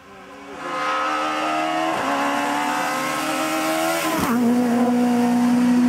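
Renault Clio Super 1600 rally car's 1.6-litre four-cylinder engine approaching hard and growing loud within the first second, its note climbing. The note is broken by a quick gear change about two seconds in, then breaks and drops to a lower, steady note as the car passes about four seconds in.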